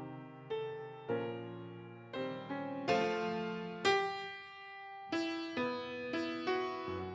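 Solo piano music: a slow melody of single struck notes, about one or two a second, each left to ring and fade over lower held notes.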